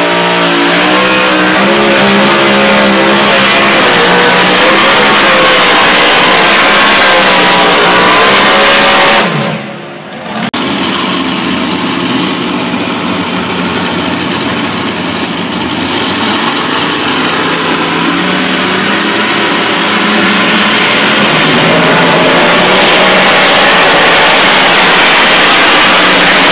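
Tractor-pull competition engine running flat out under load down the track. The loud, continuous engine note climbs in pitch at the start, and the sound dips sharply for about a second roughly nine seconds in.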